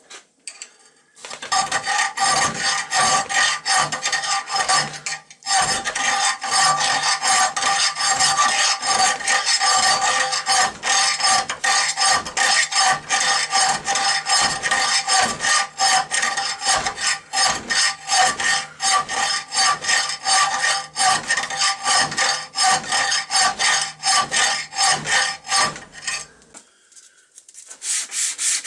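Hand file rasping on the steel of an old butcher's cleaver in steady strokes, about two a second, with a ringing metallic note. It pauses briefly once and stops near the end.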